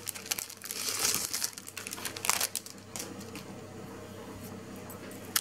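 Clear cellophane sleeve crinkling in bursts as it is pulled open and off a card in the first few seconds, then quieter rustling, with a single sharp click near the end.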